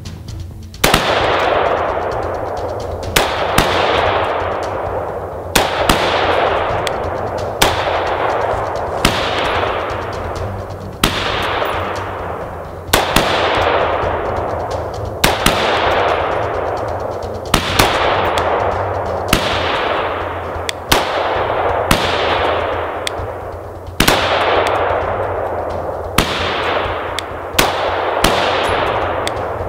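Rifle firing 5.56 mm 62-grain XM855 rounds one at a time, roughly one shot every second and a half, about twenty in all. Each shot is a sharp crack followed by a fading echo lasting a second or more.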